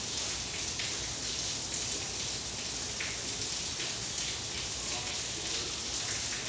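Steady high-pitched hiss of background noise with a few faint ticks.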